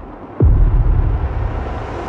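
Soundtrack sound design: a quick downward pitch drop lands in a deep booming hit about half a second in, followed by low rumble and a swell of noise that starts to rise.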